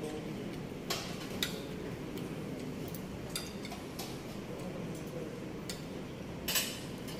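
Scattered light clicks and clinks of metal utensils and dishes, about half a dozen at irregular intervals and the loudest near the end, over a steady low room hum.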